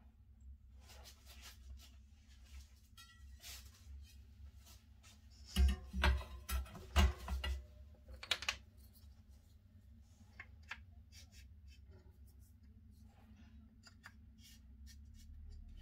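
Hands handling a wooden wheel-dishing gauge and a bicycle wheel on a wooden workbench: scattered light clicks and taps, with a run of louder wooden knocks and thuds about six to seven and a half seconds in, over a low steady hum.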